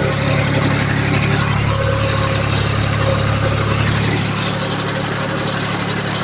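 Tractor engine running steadily under load while dragging a sawlog up a hill.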